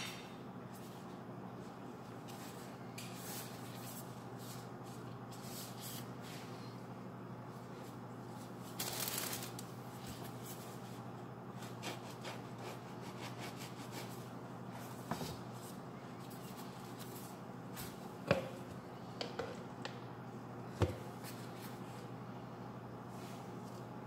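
Soft scraping and rustling as gloved hands spread filling on a bread roll with a utensil and handle the bread, with a few light clicks and taps in the second half. A steady low hum runs underneath.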